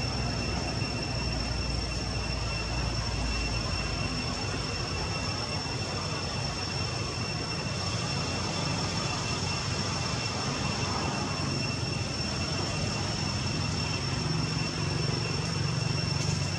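Steady outdoor background noise: a low, even rumble under two constant high-pitched whines, with no calls from the monkeys.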